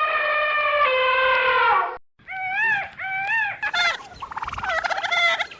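A long, steady high animal call that drops in pitch partway and stops about two seconds in. After a short break, a turkey gives two rising-and-falling calls and then a rapid rattling gobble.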